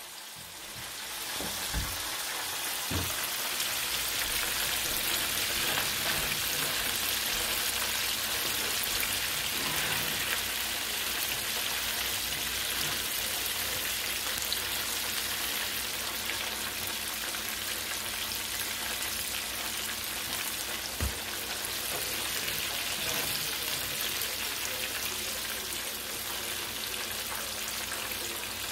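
Chicken wings deep-frying in hot oil: a steady sizzling hiss that builds over the first second or so, with a few brief low knocks, two near the start and one about two-thirds of the way through.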